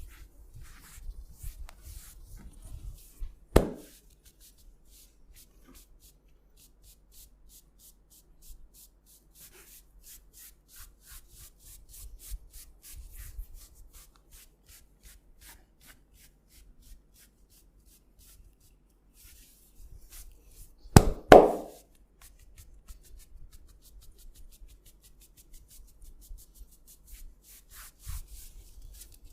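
Hands massaging a head and ears: a steady run of light rubbing and small ticks of skin and hair under the fingers, broken by two louder thumps, one about three and a half seconds in and a double one around twenty-one seconds in.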